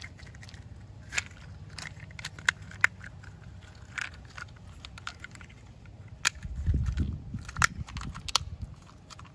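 Plastic toy truck parts handled and pressed together: a scatter of sharp clicks and snaps as the upper body is fitted onto the wheeled chassis, with a stretch of low rubbing and handling noise about two-thirds of the way through.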